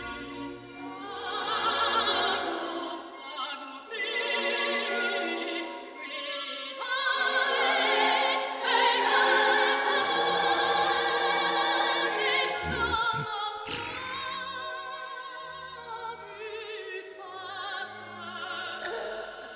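Operatic singing with orchestral accompaniment, the voice held on long wavering notes with heavy vibrato.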